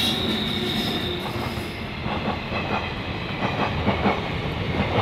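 Indian Railways passenger train passing close by, its electric locomotive and then the coaches rolling past. A steady rumble with repeated clacks of the wheels over rail joints.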